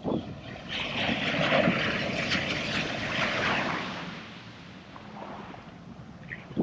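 Surf washing up the beach: a wave surges in about a second in and fades out about three seconds later, with wind rushing on the microphone and a short thump at the start and near the end.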